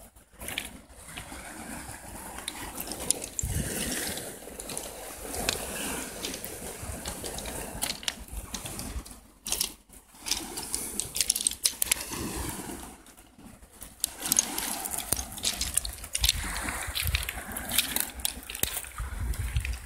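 Footsteps crunching and rattling over loose beach pebbles, an irregular run of short clicks with two brief pauses along the way.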